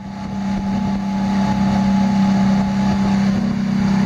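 Outboard motor running at a steady speed, a constant drone, with the wake rushing beneath it. The sound fades in at the start.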